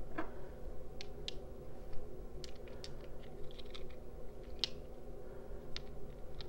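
Polished crystal stones clicking and tapping against each other as they are handled: scattered light clicks at an uneven pace, one sharper click a little past the middle.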